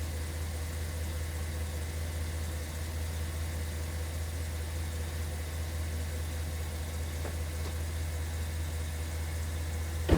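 Car engine idling, a steady low hum. A single sharp click just before the end.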